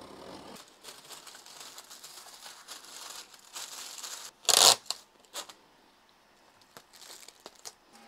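Tissue paper rustling and crinkling as sheets are unfolded and handled for packing, with one short, much louder rustle or rip about halfway through.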